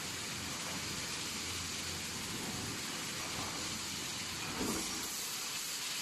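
Automatic steel wire mesh welding machine running: a steady hiss of machine noise, with one short clunk about four and a half seconds in.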